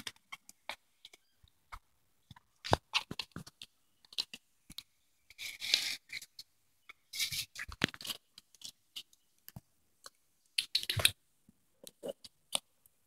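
A kitten clawing and biting at a shoe: irregular scratches, scrapes and soft knocks, with a few longer scuffling bursts.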